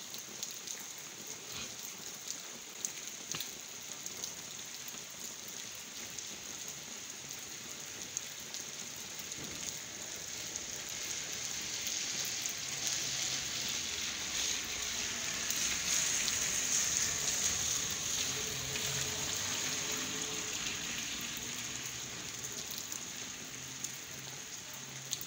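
Steady rain falling on a wet paved street, with scattered drops tapping; it swells in the middle and eases again near the end.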